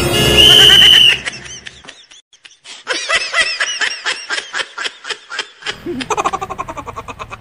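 A steady high tone for about a second, then high-pitched laughter: a fast string of short, squeaky rising-and-falling giggles.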